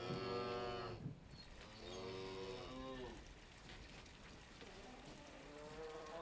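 Cattle mooing: a loud moo right at the start, a second drawn-out moo about two seconds in, and a fainter one near the end.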